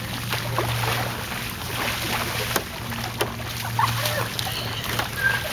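Bare feet running and splashing through a shallow rain puddle, with scattered sharp splashes over a steady low hum.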